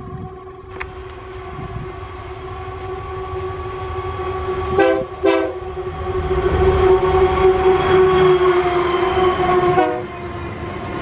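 Diesel freight locomotive approaching at speed and sounding its multi-tone horn, held almost continuously with two short blasts about five seconds in, then cutting off sharply just before it passes. Engine and wheel rumble rise underneath as it nears.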